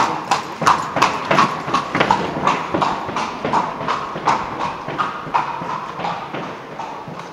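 Horse's hooves clip-clopping on the stone floor of a narrow sandstone gorge as a horse-drawn carriage passes, about three strikes a second. The hoofbeats echo off the rock walls and fade in the second half as the carriage moves away.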